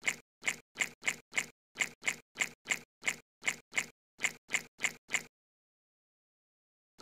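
A short sound effect for a praying mantis drinking water droplets, repeated about three times a second with dead silence between each, then stopping about five seconds in.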